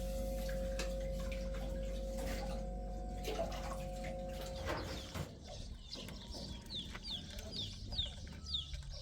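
A steady hum with two held tones runs until about five seconds in and then stops. After that a bird gives short, high, falling chirps, about two a second.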